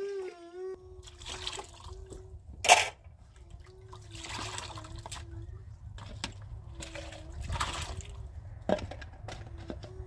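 Water pouring from a plastic jug into a plastic basin of dishwater, in several splashing pours of a second or so each. A single sharp knock sounds about three seconds in.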